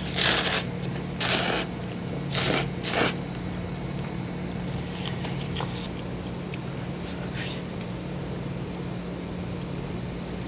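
Instant cup noodles slurped with chopsticks: four loud, hissing slurps in the first three seconds, then only faint clicks. A steady low hum runs underneath.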